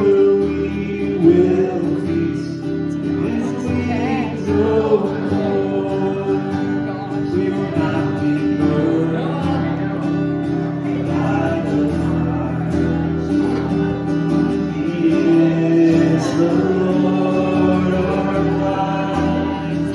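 Group singing of a Christian worship song with instrumental accompaniment. It holds steady at a fairly loud level.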